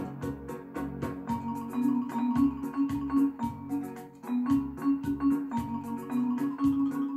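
Hammond EX1 electronic home organ playing a melody over a bass line, with a steady ticking beat about four times a second.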